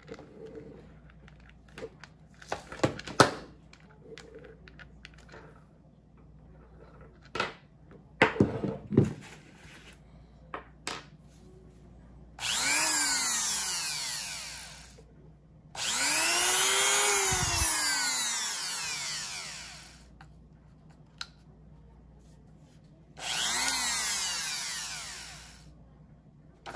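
Handheld 160W mini rotary tool switched on three times for a few seconds each, its motor whining up to speed and winding back down each time it is switched off. Before that, sharp clicks and knocks of the tool and its parts being handled.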